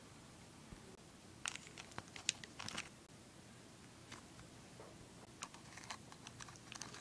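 Faint handling sounds of crafting at a canvas: small clicks and crinkly scrapes as buttons are pressed onto the canvas and a hot glue gun is set to it, in two short spells, about a second and a half in and again near the end.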